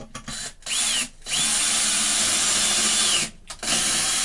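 Power drill driving Torx wood screws into a board, running in three bursts with short stops between them.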